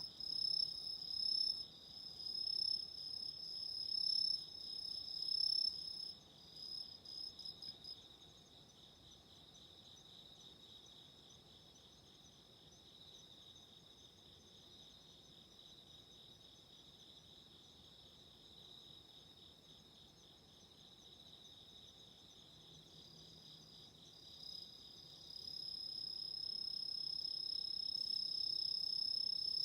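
Chorus of autumn insects singing, two songs at different pitches: a steady lower trill and a higher, louder chirping. The higher song comes in rhythmic bursts for the first several seconds, fades back, and returns as a steady song over the last few seconds.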